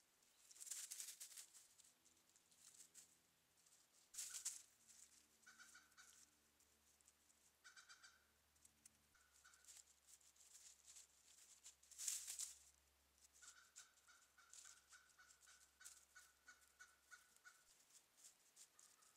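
Gray squirrels rustling and scrabbling through dry fallen leaves, in loud short bursts about a second in, around four seconds in and around twelve seconds in, with lighter crackling between. Series of rapid short calls from a bird or other animal come in between, the longest run late on; the whole recording plays at double speed, which raises the pitch.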